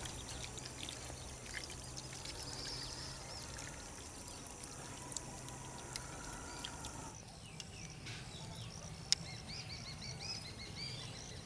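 Faint rural ambience: light splashing and dabbling of hands in shallow muddy water, then from about eight seconds in a run of quick, repeated small-bird chirps, with a few sharp clicks.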